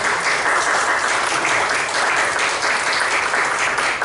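Audience applauding, a dense, steady clapping that starts suddenly just before and holds at full strength.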